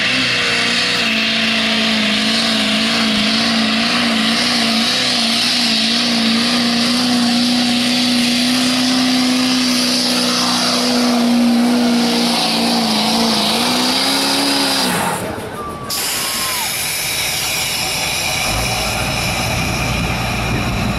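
Chevrolet Silverado HD diesel pickup at full throttle, straining under the load of a pulling sled. The engine revs up and holds high, steady revs with a slight waver for about fourteen seconds, climbs briefly, then drops off as the pull ends. After that, a lower engine sound runs on steadily.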